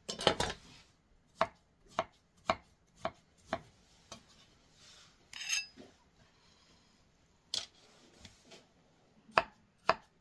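Kitchen knife cutting dragon fruit on a wooden cutting board: sharp knocks of the blade striking the board, a run of about two a second, then a short scrape halfway through and a few more knocks near the end.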